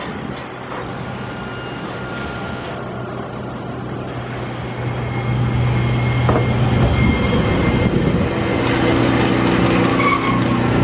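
A Toyohashi Railway T1000 low-floor tram moves close alongside the stop. A steady electric hum and rumble grow louder about halfway through, and a stack of steady motor tones comes in near the end as it passes close by.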